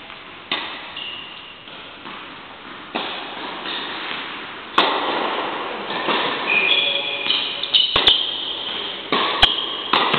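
Tennis balls struck by rackets and bouncing on an indoor court: irregular sharp pops that echo through a large hall, coming more often in the second half, with a few short high squeaks between them.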